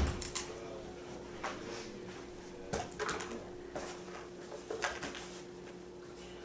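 Small cardboard boxes being handled on carpet: a sharp knock at the very start, then a few light knocks and rustles as boxes are picked up and set down, over a faint steady hum.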